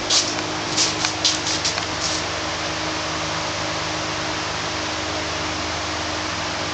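Wood chipper driven by a 6.5 hp Predator single-cylinder engine, running steadily at speed with an even hum and whirr. Several short, sharp crackles in the first two seconds, then it runs on evenly.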